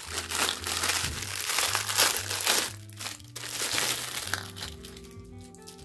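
Clear plastic packaging bag crinkling and crackling as a plastic soap dish is worked out of it by hand, dying away about four and a half seconds in. Soft background music plays underneath.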